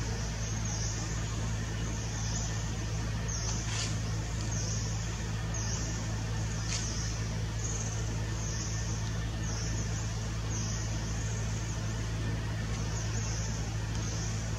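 Steady outdoor ambience: a constant low motor-like hum under an even hiss, with a high chirp repeating roughly once a second and two faint clicks.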